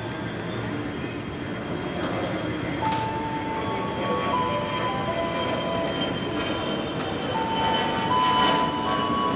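JR 205 series electric commuter train running at a station platform, a steady rumble. Over it, a string of held tones steps up and down in pitch.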